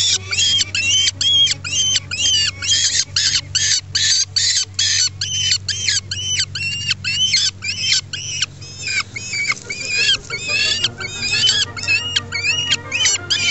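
Peregrine falcon chick calling repeatedly, about three short harsh calls a second, each rising and falling in pitch, while it is held in the hand for banding.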